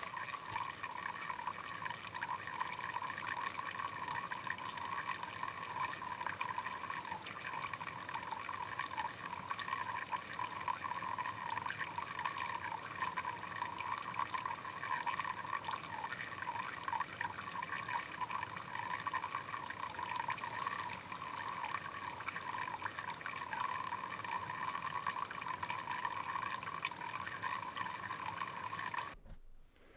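Thin stream of water running steadily from a black plastic pipe spout and splashing below, a continuous trickling, filling sound. It cuts off suddenly near the end.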